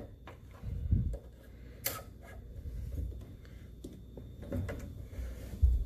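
Faint clicks, ticks and rubbing of a plastic push-in fitting being worked onto PEX tubing by hand, with a few low handling thumps, the strongest about a second in and near the end.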